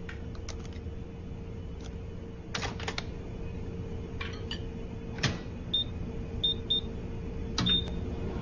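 A few clicks and knocks of handling, then four short high beeps of a microwave oven's keypad being pressed to set it, over a faint steady hum.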